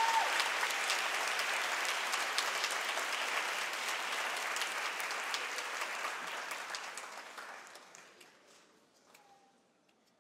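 Theatre audience applauding at the end of a ballet variation, the clapping dying away between about seven and nine seconds in.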